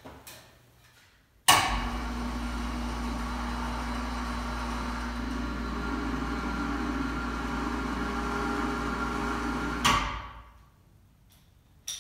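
Pittsburgh 440 lb electric cable hoist running under a weight test: its motor starts with a sudden clunk, hums steadily for about eight seconds, then stops with a click and winds down.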